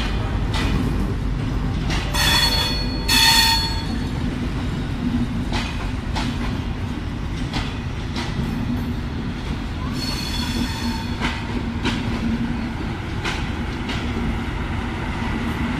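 Passenger train coaches rolling past: a steady low rumble from the wheels on the rails with scattered clicks from the rail joints. Two short high-pitched squeals come about two to three seconds in, and a fainter one about ten seconds in.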